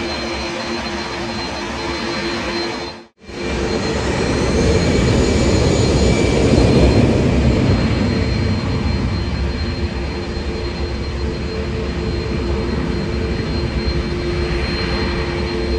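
Jet airliner engines running with a steady whine over a rumble. The sound breaks off for an instant about three seconds in, then returns louder, swelling to a peak around the middle before easing a little.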